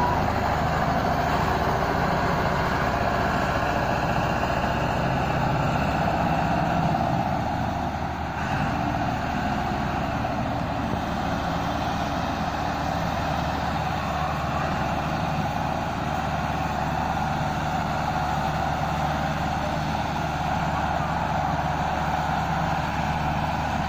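Massey Ferguson 385 tractor diesel engine running steadily under load, with a second tractor working alongside, as they pull heavily loaded sugarcane trolleys.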